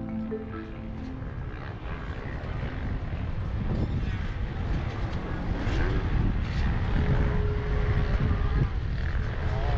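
Wind buffeting the camera microphone in the open air, a gusty low rumble that grows louder after the first couple of seconds.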